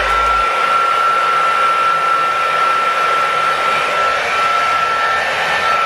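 Handheld hair dryer running steadily, a rush of air with a constant motor whine.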